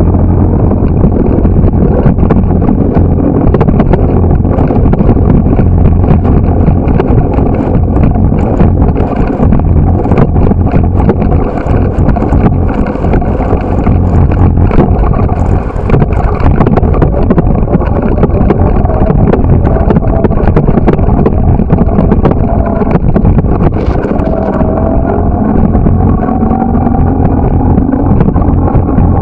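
Wind buffeting the microphone of a camera riding on a moving bicycle: a loud, steady low rumble with frequent clicks and rattles from the bike over the pavement. Road traffic runs alongside, with a rising tone near the end.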